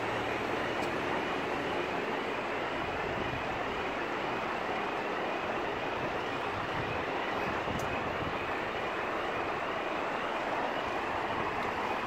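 Fire trucks' diesel engines running steadily as a turntable ladder truck drives up to the building, mixed with street traffic noise. A faint rising tone repeats about twice a second in the background.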